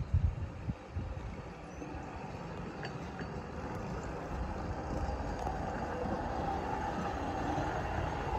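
Hi-rail pickup truck rolling along the rails on its rail gear, a steady rumble with a hum that grows louder as it approaches. A few dull thumps come in the first second.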